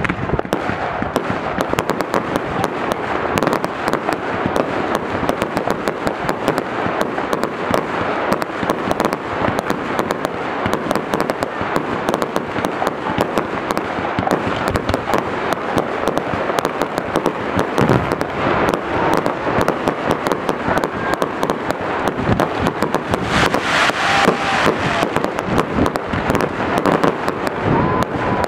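Professional fireworks display: a dense, unbroken run of bangs and crackling from shells and cakes going off, with a couple of faint whistling tones near the end.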